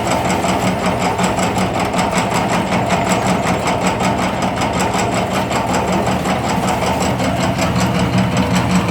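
Automatic dough dicing machine running, its cutter clattering in a fast, even rhythm over a steady motor hum.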